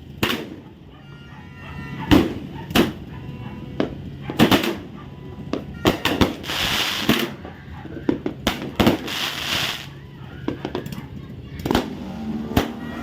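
Fireworks and firecrackers going off: a series of sharp bangs at irregular intervals, with two hissing, crackling bursts in the middle.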